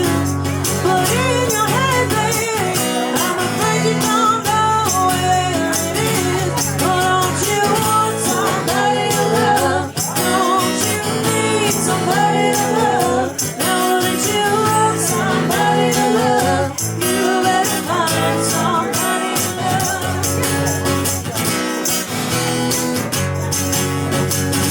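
Music: a band playing a song, with a sung melody over the instruments and a steady beat.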